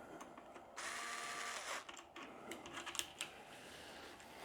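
Small handling noises at a workbench: a scratchy rasp lasting about a second, then a few light clicks.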